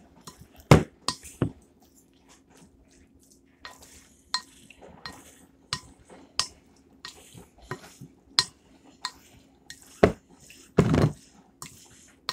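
A utensil knocking and scraping against a glass mixing bowl while folding a wet, creamy squash casserole mixture, in irregular clinks and soft squelches. The longest and loudest scrape comes about eleven seconds in.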